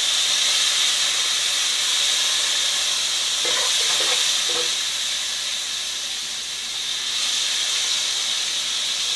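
Diced red potatoes sizzling steadily in hot oil in a pot as fresh lemon juice is poured in.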